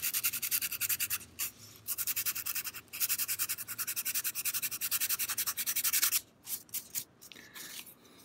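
Hand-sanding an old unsealed wooden straight-razor scale with a small piece of sandpaper: quick back-and-forth rubbing strokes, several a second, with two brief pauses, stopping about six seconds in and followed by a few faint strokes.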